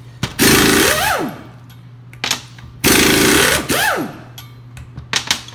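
Pneumatic impact wrench loosening wheel hub mounting bolts: two short, really loud bursts of hammering, each with the air motor's whine rising and falling as it spins up and winds down.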